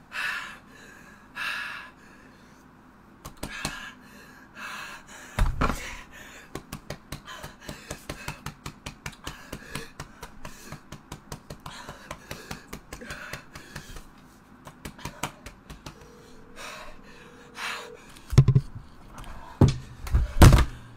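A young man gasping and panting in pain from the burn of an extremely hot chip, with a long run of short quick breaths or clicks. Near the end a phone's ringback tone sounds for about two seconds, followed by a few heavy thumps.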